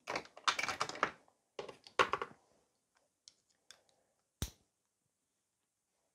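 Nail art brushes and small tools handled on a work desk: two short bursts of rattling and clinking, then a few light clicks and one sharp tap about four and a half seconds in.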